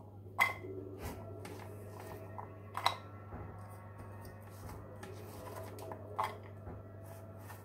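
Handfuls of diced raw zucchini dropped into a nonstick cooking pot, with small clatters as the cubes land and three sharper knocks, the first about half a second in and the last about six seconds in. A steady low hum runs underneath.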